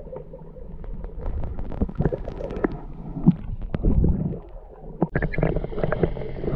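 Muffled underwater sound from a camera held below the surface: a low water rumble with many small clicks and knocks. About five seconds in, a steady low hum joins.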